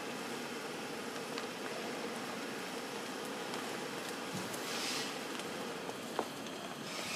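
Small electric blower fan inside an inflatable decoration running steadily as the nylon figure fills, with brief rustling of the fabric twice and one short click near the end.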